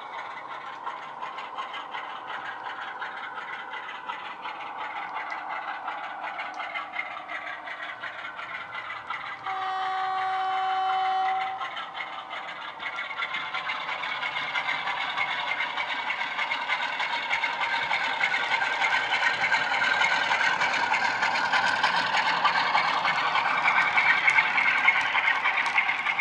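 Jamie Goodman DCC sound on a Bachmann Class 47 model locomotive, played through its pair of megabass speakers: the diesel engine sound running and growing steadily louder as the loco approaches. A horn sounds for about two seconds about ten seconds in, and the wheels of the model and its wagons rattle on the track.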